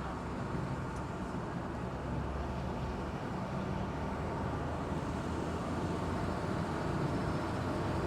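Engine of an amphibious duck tour boat running steadily as it cruises on the river, a low continuous drone with water and wind noise, growing a little louder near the end.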